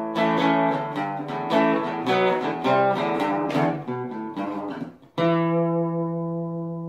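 Guitar music: chords strummed several times a second, then a pause and a final chord struck about five seconds in and left to ring out.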